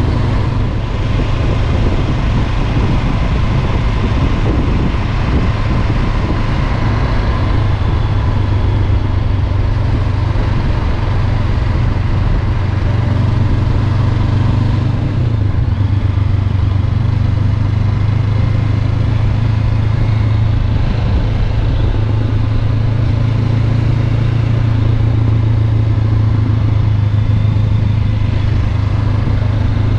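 Honda CB500X's parallel-twin engine running steadily under way, a constant low hum that wavers briefly about halfway through.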